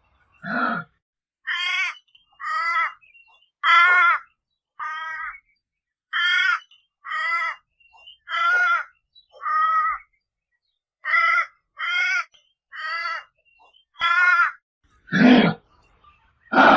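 Kangaroo calls: one low grunt, then a run of about a dozen short, higher-pitched calls roughly a second apart, then two more low grunts near the end.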